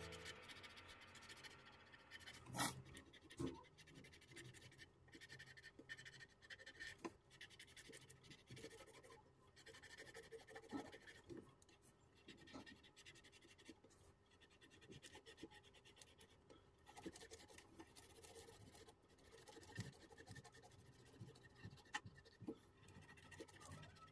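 Faint pencil scratching on paper with scattered light taps, as an area is shaded in; two slightly louder knocks a few seconds in.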